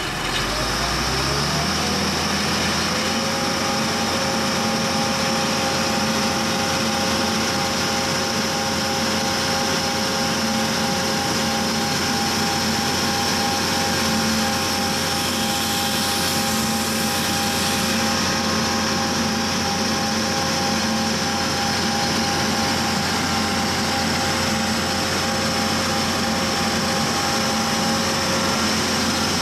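Vermeer D80x100 Navigator horizontal directional drill's diesel engine coming up to speed in the first second or so, then running steadily with a whine. A hiss joins in about halfway through for a few seconds.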